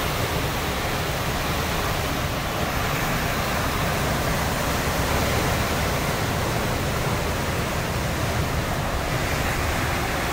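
Hurricane wind and heavy rain through the trees: a loud, steady rush of noise.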